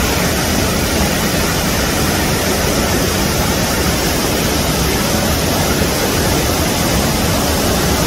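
Loud, steady rush of the Velo de Novia waterfall's falling water, an even roar with nothing else over it.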